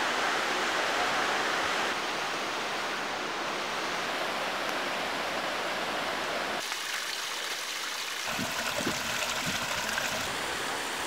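Mountain creek rushing over boulders: a steady rush of water whose tone changes abruptly several times, with a few faint low knocks about three quarters of the way through.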